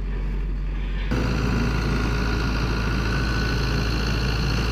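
Caterpillar skid steer loader's diesel engine running steadily at low revs; about a second in the sound suddenly becomes louder and fuller.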